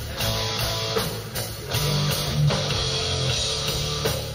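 Hard rock music with electric guitar and a drum kit, playing over the studio monitors.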